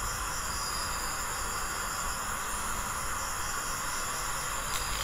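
Steady hiss of the recording's background noise, with faint steady high-pitched tones and a low hum underneath; nothing else happens.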